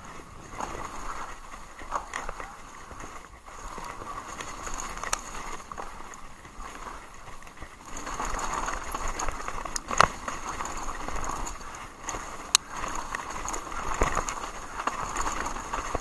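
Haibike Sduro electric mountain bike descending a leaf-covered dirt trail: tyres rolling over leaf litter and dirt with the bike rattling, louder from about halfway. Sharp knocks as it hits bumps, the loudest about ten seconds in and again a little before thirteen seconds.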